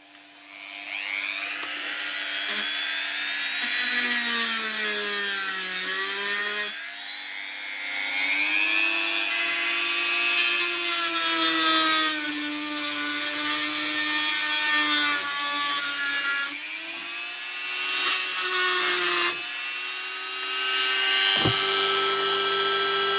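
Small electric power tool, such as a drill or rotary tool, whining as it cuts into metal items to get zinc from them. Its pitch sags and recovers over and over as the work loads the motor.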